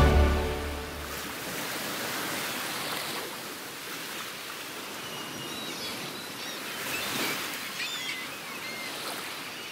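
Sea waves washing steadily, as the closing music fades out in the first second. A few short gull cries come in about six to nine seconds in.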